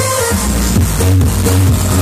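Loud electronic dance music played over a nightclub sound system, with a heavy bass line and a steady beat.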